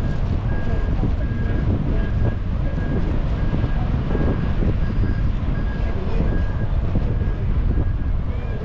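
Wind buffeting the microphone, a steady low rumble, with a faint high beep repeating about twice a second.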